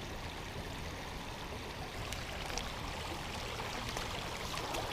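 River water running steadily, an even rushing noise with a few faint ticks a couple of seconds in.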